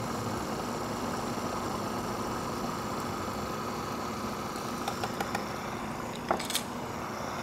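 KitchenAid food processor motor running steadily, its blade whirring through garlic, lemon juice and oil as the toum emulsifies. A few light clicks come about five to six and a half seconds in.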